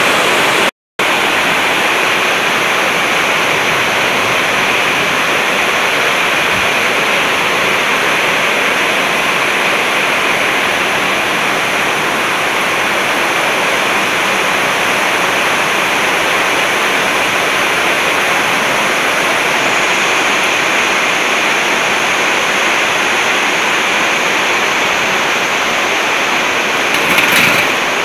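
Steady, loud rushing noise with no rhythm, cut off completely for a moment about a second in. A few louder rustles come near the end.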